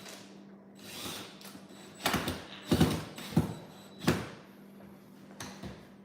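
Foosball table parts being handled: a run of knocks and sliding scrapes, loudest a little before the middle, with a few softer knocks after.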